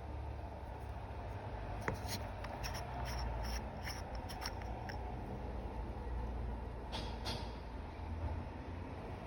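Handling noise from an unboxing: a run of light clicks and rustles over a couple of seconds, then another rustle a little later, over a steady low background rumble.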